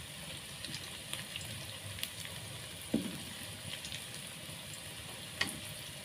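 Tempeh deep-frying in a pan of hot oil: a steady sizzle with small crackling pops. A few sharper knocks stand out, about two, three and five and a half seconds in.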